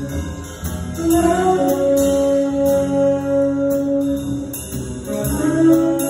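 Small jazz combo playing: saxophones holding long unison notes that shift pitch twice, over a drum kit with regular cymbal strokes, with upright bass and piano beneath.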